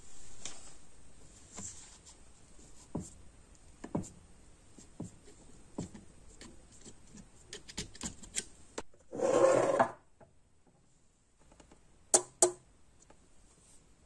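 Small clicks and scrapes of cotton wadding being packed into a brass lighter's fuel tank with a screwdriver, with a louder rustle lasting about a second around nine seconds in and two sharp clicks near twelve seconds.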